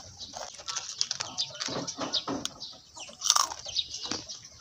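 Thin plastic snack wrapper crinkling and rustling in the hands as it is peeled open, in irregular crackles, the loudest about three and a half seconds in.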